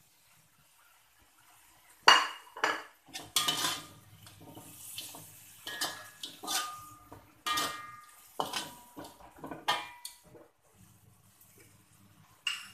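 Metal slotted spatula scraping and clanking against a wok while chicken pieces are stirred through a thick red chilli sauce. It comes in separate strokes, each with a short metallic ring, starting about two seconds in and thinning out near the end.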